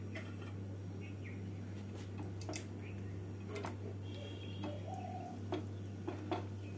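Ladle clicking faintly against a kadai now and then as boiled potatoes in thin curry are broken up, over a steady low hum.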